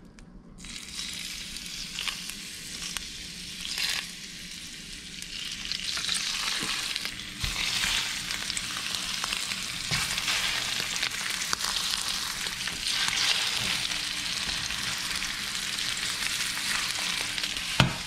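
Florida spiny lobster tails sizzling in hot olive oil in a stainless steel skillet. The frying starts about half a second in and grows louder over the first several seconds as more tails are laid in, with a few light clicks along the way.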